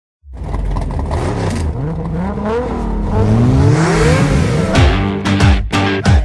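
Car engine revving, its pitch rising again and again as it is pushed through several revs, as the intro of a pop song. About four and a half seconds in, a beat with drums, bass and guitar starts.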